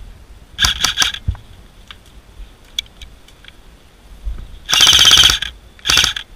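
Airsoft rifle firing in rapid full-auto bursts: a short burst about a second in, a longer burst about five seconds in and another short one near the end, with a few faint single clicks between.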